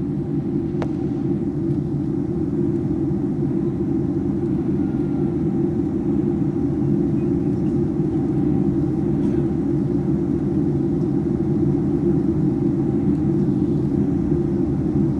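Steady cabin noise of an Airbus A321 in cruise, heard from a window seat over the wing: an even low rumble of engines and airflow with a faint steady tone above it. A single faint click about a second in.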